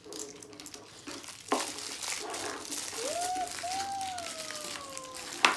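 Plastic wrapper crinkling as an LOL Surprise ball is unwrapped, with a sharp click about a second and a half in and a louder one near the end as the hard plastic ball halves are knocked on the tabletop. In the middle a voice makes one long drawn-out "ooh" that rises and then slowly falls in pitch.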